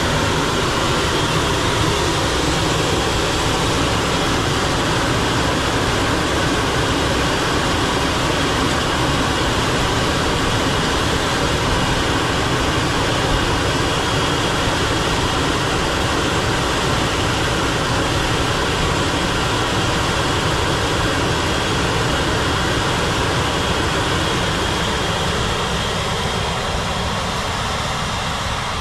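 Fendt tractor engine running steadily while working a field, pulling a combined cultivation and seed-drilling rig, the sound easing slightly near the end.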